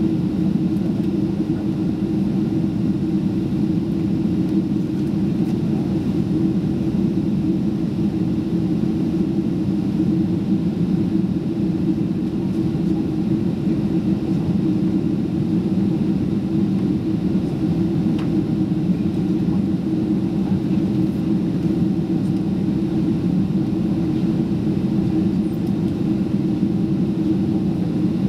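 Steady in-flight cabin drone of a Boeing 767-336 heard from an economy window seat: the hum of its Rolls-Royce RB211 engines blended with airflow noise, a constant low rumble with a couple of steady low tones.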